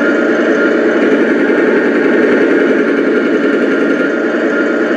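Radio-controlled Sherman tank model's sound unit playing a simulated tank engine, a steady running rumble with a thin high whine over it.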